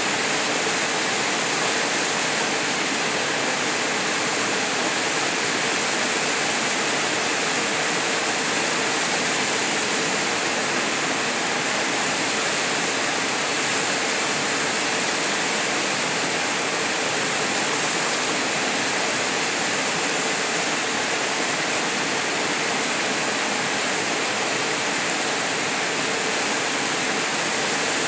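Small waterfall pouring into a rock pool: a steady, unbroken rush of falling water.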